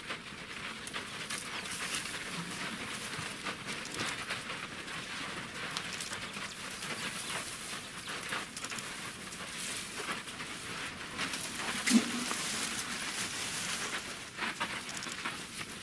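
African elephant herd walking past close by: soft footfalls with crunching and rustling on dry dirt, twigs and brush, heard as a steady patter of small crackles. One louder, sharper click about twelve seconds in.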